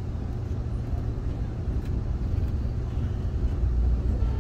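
Steady low rumble inside an Amtrak passenger car as the train backs slowly, with a faint click about two seconds in.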